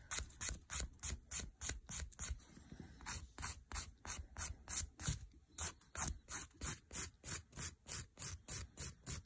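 A coarse 100-grit hand nail file (the Ruby file) rasping back and forth across hard building gel on a fingernail, taking down the bulk. The strokes come quick and even, about four a second, with a short pause a little over two seconds in.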